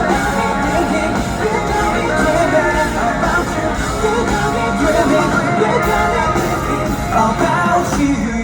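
Live pop-rock band music at the end of a song, with some singing over it.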